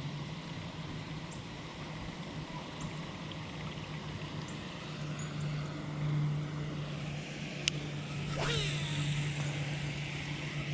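Steady low hum of a distant motor, with one sharp click about three-quarters of the way through and a short chirp just after.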